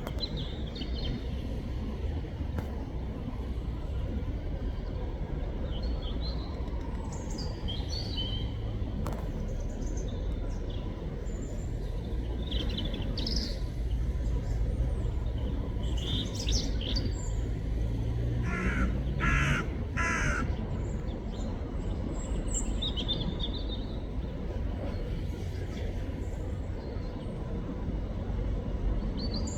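European robin singing short, high, thin phrases with pauses between them, over a steady low background rumble. About two-thirds of the way through, another bird gives three louder, lower calls in quick succession.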